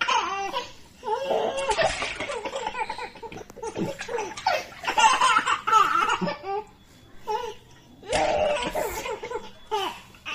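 A toddler laughing in repeated bouts, with a short lull before a last burst of laughter near the end.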